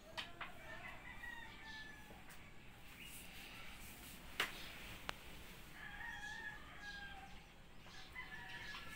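A rooster crowing faintly, three drawn-out crows, with a single sharp tap about halfway through.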